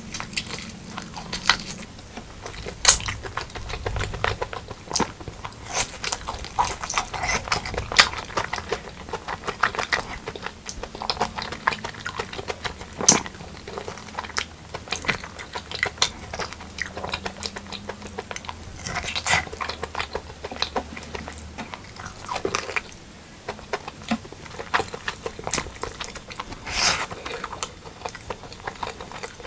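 Mouth sounds of eating spicy pork leg curry with white rice: chewing and biting, with many irregular short, sharp clicks.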